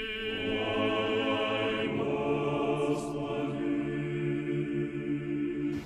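Small group of voices singing a slow Orthodox memorial-service chant a cappella, on long held notes in harmony, the choir's response after the litany for the departed. It cuts off abruptly near the end.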